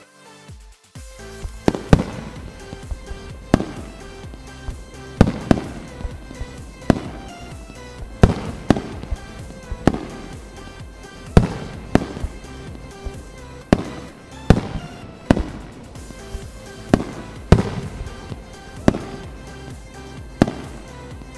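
Fireworks going off: a series of loud bangs at irregular gaps of about one to two seconds, each with a trailing echo, starting about a second in. Background music plays underneath.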